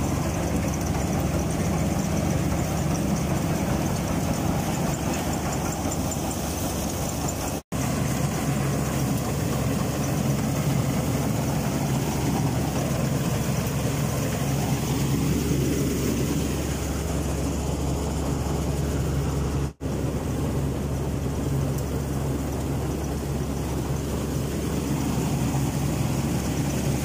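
Preet 949 combine harvester running steadily, its four-cylinder engine humming under load with the cutter and threshing gear working. The sound drops out for an instant twice, about eight and twenty seconds in.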